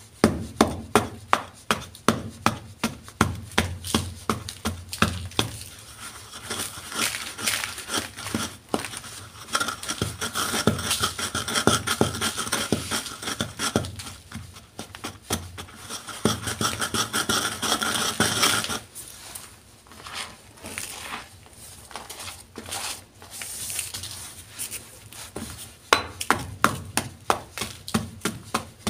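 Pestle pounding and grinding a block of gym chalk in a bowl, crunching it down to powder. Sharp repeated thuds, about two or three a second, open the stretch. In the middle comes a run of steady gritty grinding, then it goes quieter, and the thuds return near the end.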